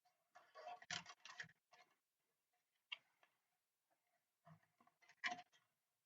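Faint clicks and rattles of hands handling small parts and tools on a workbench, in three short clusters, the loudest about a second in.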